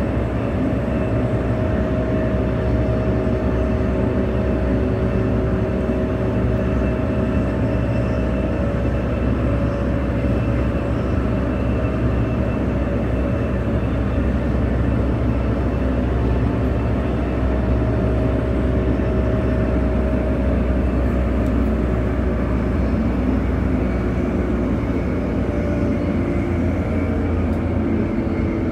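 Bombardier B-series electric multiple unit heard from inside a carriage while running at speed: a steady heavy rumble of wheels on rail, with a faint whine of several steady tones over it.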